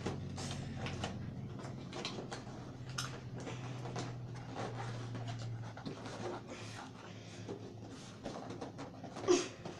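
Packaging of a boxed keyboard being handled and pulled at: irregular rustling, crinkling and scraping, with a louder crinkle near the end.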